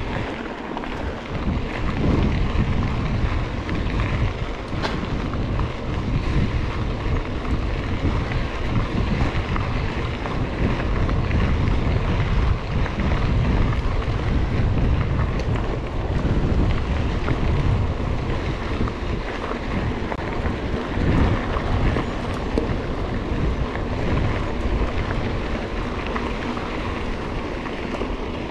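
Wind buffeting a GoPro action camera's microphone during a mountain-bike ride: a steady, rumbling rush of noise.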